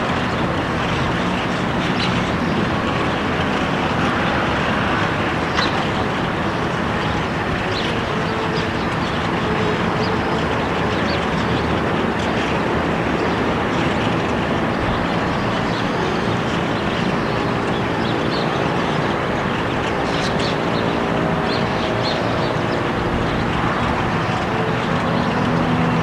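Steady, loud outdoor background noise with a faint low hum in the second half, and short high bird calls now and then.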